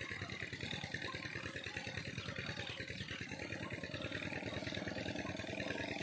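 Water pump's engine running steadily with a fast, even beat.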